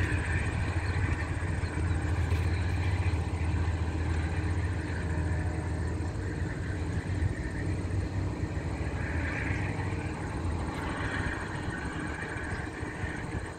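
VIA Rail passenger train pulling away: a steady low rumble that weakens over the second half as the rear coach draws off.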